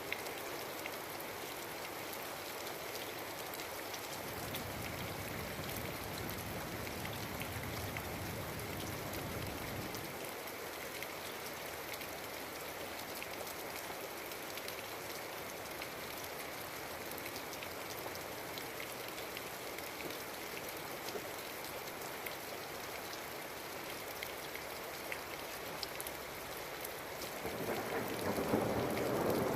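Steady rain falling, with many small drop ticks. A low rumble of distant thunder comes in about four seconds in and fades around ten seconds, and near the end a much louder thunderclap begins to build.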